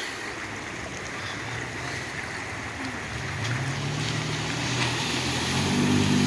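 Off-road vehicle's engine pulling under throttle as it drives through an obstacle. It comes in about halfway and grows louder near the end, over a steady rush of running water.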